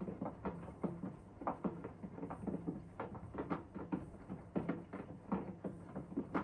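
Hoover DXOA610AHFN-80 washing machine running a Rapid wash: the drum tumbles the load with a steady motor hum and many irregular light patters and clicks of wet laundry and water falling.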